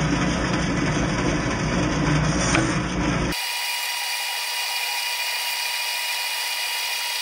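Bandsaw running, with a wooden lure blank fed into the blade. About three seconds in, the sound changes abruptly to a thinner, high hiss with steady whining tones.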